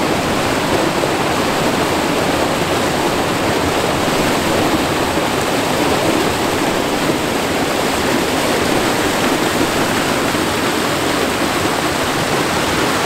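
Fast mountain stream rushing and splashing over boulders, a steady rush of whitewater recorded close to the water.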